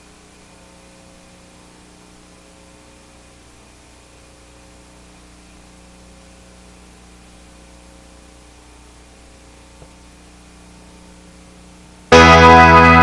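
Steady hiss with a low electrical hum from a VHS tape transfer. About twelve seconds in, loud music with guitar and keyboard cuts in suddenly.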